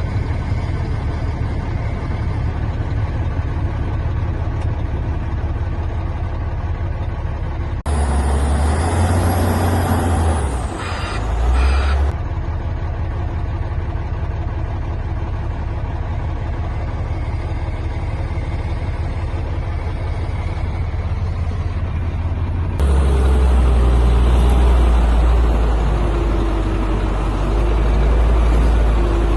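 Dump truck engine running steadily, with louder stretches from about 8 to 12 seconds in and again from about 23 seconds in.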